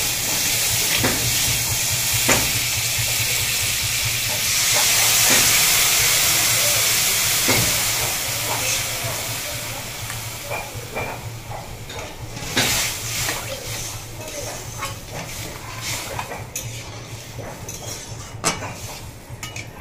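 Crab pieces sizzling in hot oil in an aluminium wok, stirred with a metal spatula. The sizzle dies down about halfway through as tamarind water goes in, leaving a softer simmer with occasional clinks of the spatula on the pan.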